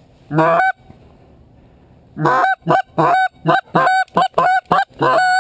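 Goose honking: a single honk, then, after a pause of over a second, a rapid run of about nine honks.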